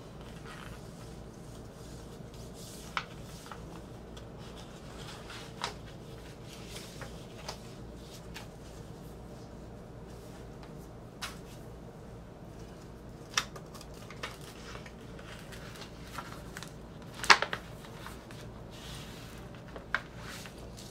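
Scattered light taps, clicks and paper rustles from handling a vinyl record's cardboard jacket and white paper inner sleeve, the loudest tap about 17 seconds in, over a steady low hum.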